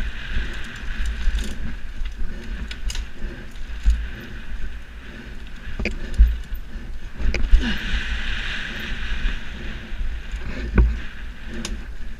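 2013 Giant Reign 2 mountain bike descending a dirt trail at speed: tyres rolling over dirt, wind rumbling on the camera's microphone, and the bike rattling with sharp knocks over bumps, a few of them louder about halfway through and near the end.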